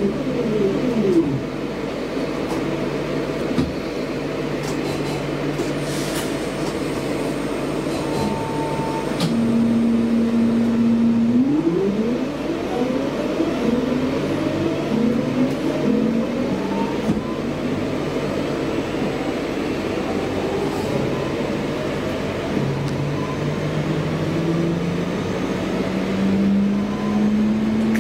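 Class 323 electric multiple unit's traction equipment heard from inside the carriage. A falling whine as the train brakes at the start, a steady hum while it stands, then whines rising in pitch in several steps as it pulls away and accelerates, with a long rising tone near the end.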